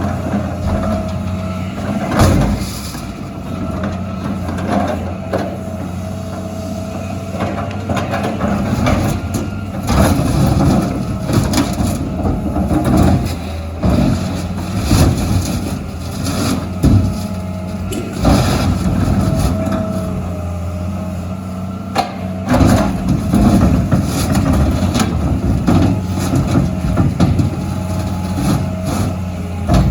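Heavy diesel engine of an excavator running steadily while metal dumpsters are crushed, with repeated bangs and crunching throughout.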